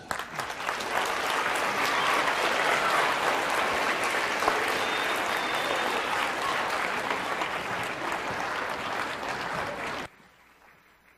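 Audience applauding: dense, steady clapping that cuts off suddenly about ten seconds in.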